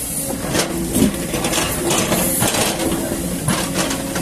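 Diesel engine of a tracked excavator running steadily, with irregular clanks and knocks as its bucket works through rock and mud.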